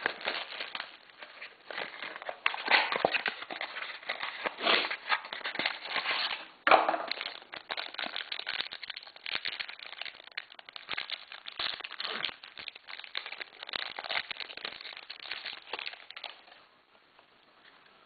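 Clear plastic wrap crinkling and crackling as it is torn off a box of trading cards and handled, with one sharp snap about seven seconds in. The crackling stops shortly before the end.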